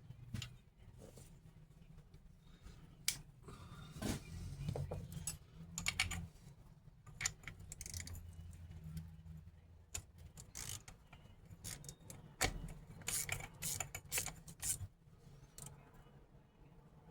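Scattered metallic clicks, clinks and a few heavier knocks of small metal parts and tools being handled on a diesel truck starter.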